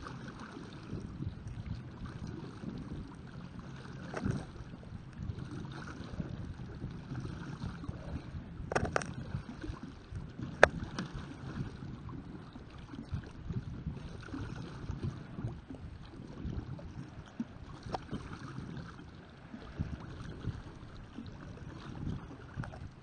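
Homemade pedal kayak's side-mounted rotating paddle blades churning and splashing the water, with a steady low rumble and a few sharp knocks, the loudest about ten seconds in.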